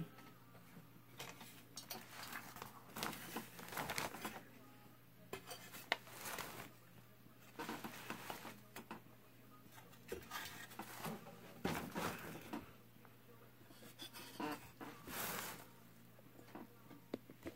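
Intermittent scraping, rubbing and light knocks from hands handling an old radio's metal chassis, short irregular noises every second or two.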